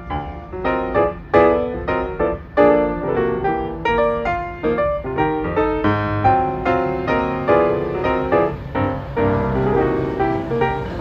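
Piano background music, a steady run of separate notes.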